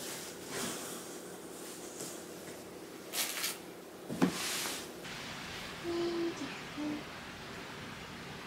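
Faint handling noises: brief rustling and a single sharp knock a little past the middle, then two short low hums.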